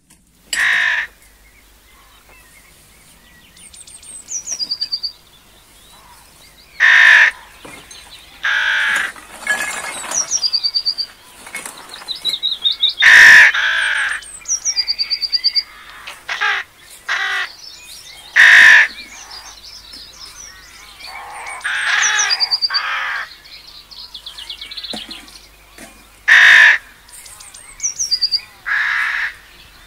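Birds calling outdoors. Loud, harsh, cawing calls come about a dozen times at irregular intervals. Between them a small songbird repeats a quick, high trill that falls in pitch every few seconds.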